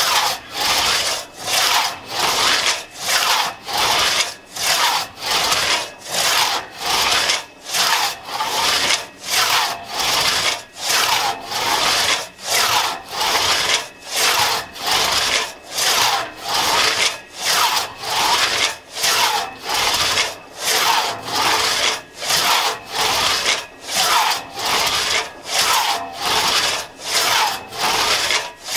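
A 4.5-foot one-man crosscut saw with Tuttle teeth cutting through a log by hand, in a steady back-and-forth rhythm of rasping strokes at about two a second.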